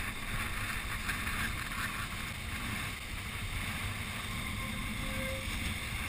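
Wind buffeting the microphone over surf washing against rocks, a steady rushing noise.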